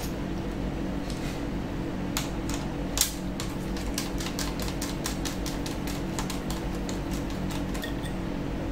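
Small irregular clicks and taps of a screwdriver on the metal screws and bracket holding a laptop's 2.5-inch hard disk, with one sharper knock about three seconds in. A steady low hum runs underneath.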